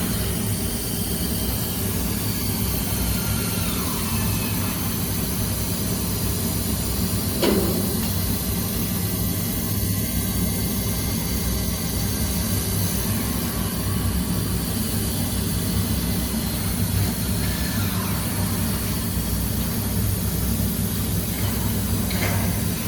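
Large-format laser sand blasting machine running with a steady low hum and hiss, a few faint sliding whines, and one sharp knock about seven and a half seconds in.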